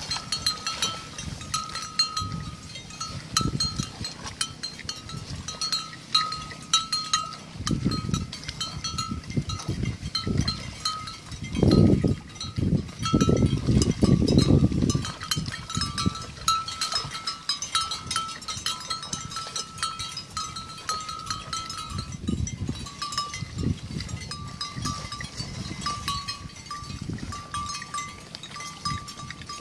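Water buffalo grazing close by in a flooded field: crackling as grass is torn and chewed, with low bursts of rustling and splashing, loudest about halfway through. A thin, steady high-pitched tone pulses in the background throughout.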